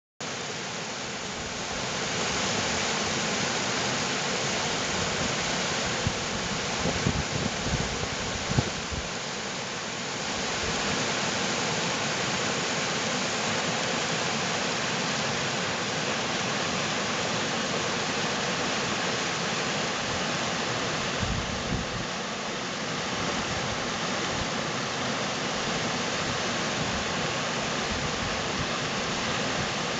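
Fast rocky stream rushing through whitewater rapids over stones: a steady, dense rush of water. A few brief low bumps come in between about six and nine seconds in and again around twenty-one seconds.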